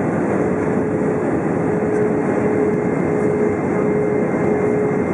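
Steady roar of airflow and engines inside the cabin of an Airbus A320 airliner on approach, with a faint hum that comes and goes.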